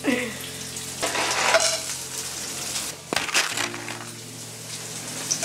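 Sliced onions sizzling in hot oil in a pan. About three seconds in, a handful of peas, carrots and other vegetables is dropped in with a sharper crackle.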